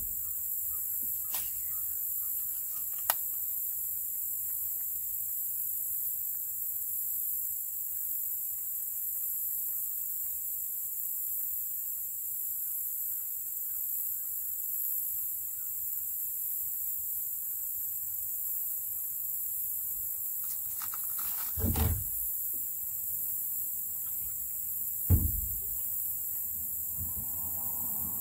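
Dull knocks of gear bumping a canoe hull, twice, a little past twenty seconds in and again about three seconds later, over a steady high hiss.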